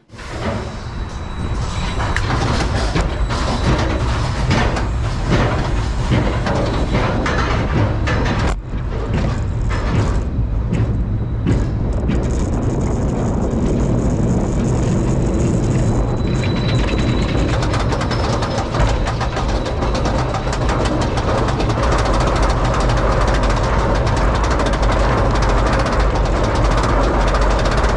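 RMC hybrid roller coaster train running on its track, heard from the front row: clicking and clattering through the first dozen seconds or so, then a steady low rumble.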